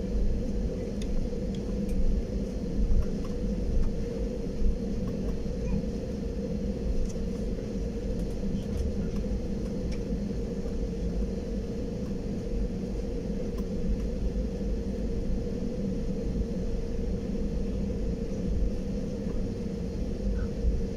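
Jet airliner heard from inside the cabin while taxiing: a steady low rumble of the engines and airframe with a constant hum over it.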